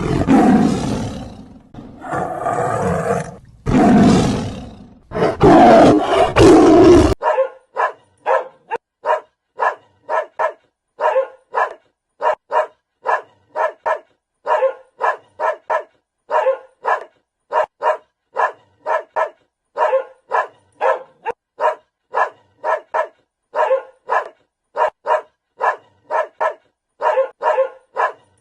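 A lion roaring, three or four long, rough roars in the first seven seconds. It cuts off abruptly to a dog barking over and over in short barks, about two a second.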